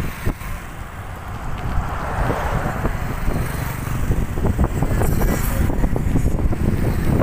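Wind buffeting the microphone of a phone carried on a moving bicycle, growing louder in the second half, with a motor vehicle passing on the road about two seconds in.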